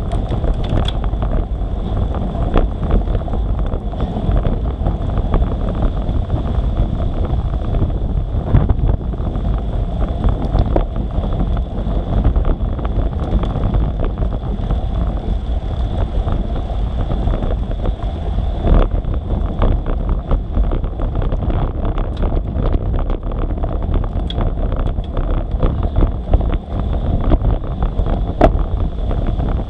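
Wind buffeting the microphone of a bike-mounted action camera, with tyres hissing on a wet road and frequent small knocks and rattles from the bike over the tarmac. A faint steady high whine runs underneath.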